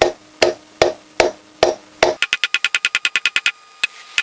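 Steel hammer striking a socket to drive a new rear wheel bearing into a motorcycle wheel hub: six sharp blows about 0.4 s apart. About two seconds in this gives way to a fast, even ticking with a ringing tone, about eight a second, which pauses briefly near the end.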